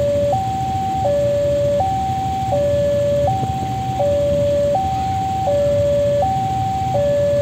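Railway level-crossing warning alarm sounding an electronic two-tone chime, a high and a low note swapping about every 0.7 seconds, over a low engine rumble.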